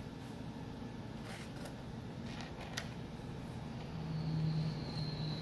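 Faint clicks and light rustling as a speaker's crossover board and its wire bundle are handled inside the cabinet. A steady low hum starts about four seconds in.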